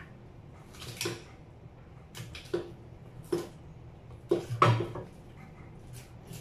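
Kitchen scissors snipping the fins off a red snapper: about six short, crisp cuts and knocks, the loudest cluster about four and a half seconds in.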